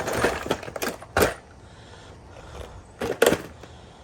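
A few sharp clacks and short rattles of small hardware being handled: loose nails and their boxes knocked about, with the loudest clacks at the start, about a second in and about three seconds in.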